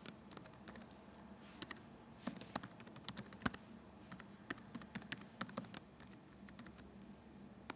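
Typing on a computer keyboard: quick, irregular keystrokes with short pauses, entering an email address and then a password.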